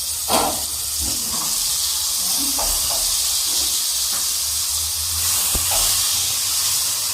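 Carrot and potato pieces going into a hot pot of chicken and tomato paste, which sizzles loudly and steadily, with a few light knocks as the pieces land.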